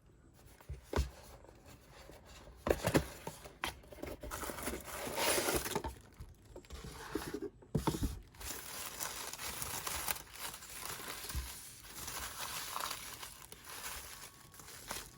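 Packaging being crinkled and torn open by hand, with a few sharp knocks along the way.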